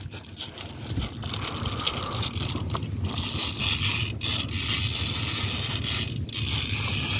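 Conventional fishing reel ratcheting and clicking steadily during the fight with a hooked fish on a heavily bent rod.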